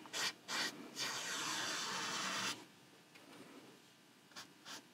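Paintbrush dragged over canvas, laying on acrylic paint: two short strokes, then one longer stroke of about a second and a half, then two short strokes near the end.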